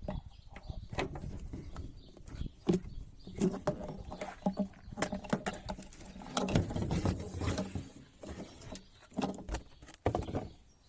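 Irregular clicks, knocks and rustling, as of objects being handled, with a denser spell of rustling in the middle.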